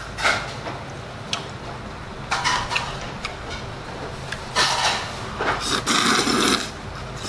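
A man slurping up soupy mul-jjajang noodles, with a long, loud slurp near the end. Shorter wet slurping and chewing noises come before it, along with a few light clicks of metal chopsticks against the bowl.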